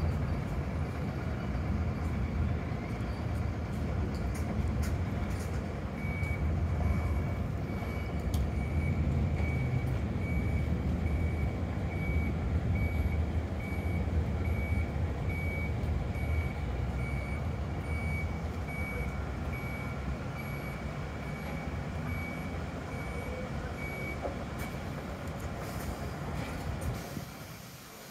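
Diesel engine of a large route bus running as it manoeuvres, with its reversing beeper sounding high, evenly spaced beeps about one and a half a second from about six seconds in until a few seconds before the end.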